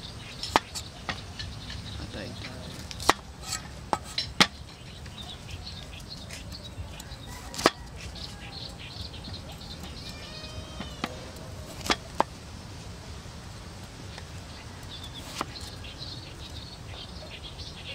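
Cleaver slicing chayote on a wooden cutting board: sharp, irregular knocks of the blade striking the board, some in quick clusters and others seconds apart. Birds chirp in the background, with a short run of calls about ten seconds in.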